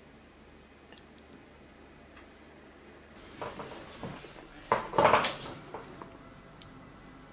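Dishware and a metal spoon clattering: a few knocks from about three seconds in, the loudest cluster at about five seconds.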